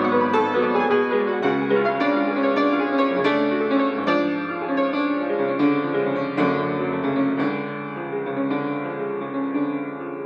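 Solo classical piano played on an open-fronted upright piano: a busy run of notes over held chords, gradually getting quieter toward the end.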